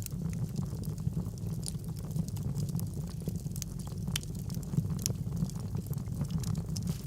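Wood fire burning in a fireplace: a steady low rumble of flames with frequent sharp crackles and pops.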